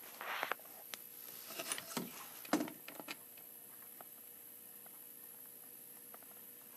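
Soft handling noises: a brief rustle at the start and a few light clicks and taps over the next three seconds, then a quiet room with a faint steady hum.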